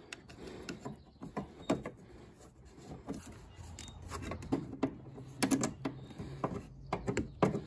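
Rubber fuel hoses being pushed back onto a diesel fuel filter housing by hand, and a spring hose clamp being worked with slip-joint pliers: scattered faint clicks and knocks, a few sharper ones around the middle and near the end.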